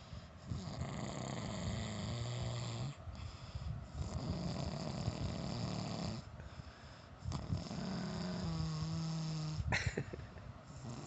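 A person snoring: a few long breaths of two to three seconds each, with short pauses between them, some carrying a low buzzing tone.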